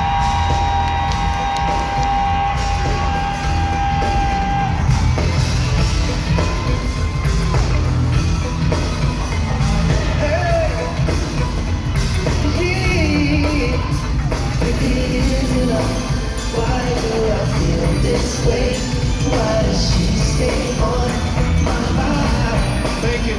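Loud live band music heard from the crowd, with heavy bass, singing and audience yelling. A held steady note stops about five seconds in.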